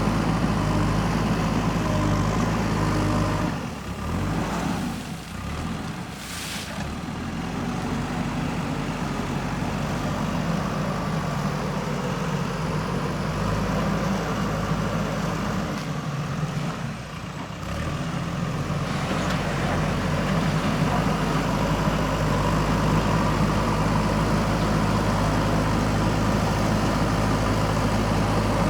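JCB backhoe loader's diesel engine running steadily, dropping briefly twice, about four seconds in and again around seventeen seconds.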